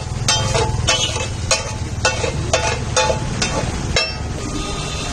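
Flat metal spatula scraping and striking a large iron tawa as pav bhaji is mashed and spread, in even strokes roughly every half second, over a steady low rumble.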